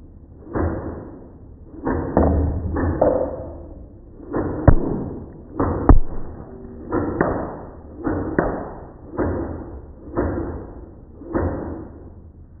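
Toy Splatter Ball gel blaster (a toy Draco) firing water beads one shot at a time, about ten shots at roughly one a second, each a sudden pop that fades quickly. Two sharper clicks come in the middle.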